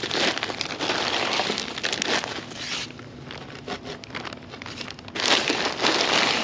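Black plastic bag crinkling, with dirt and gravel scraping, as a gloved hand scoops backfill out of it for a post hole. It eases off about three seconds in and picks up again about five seconds in.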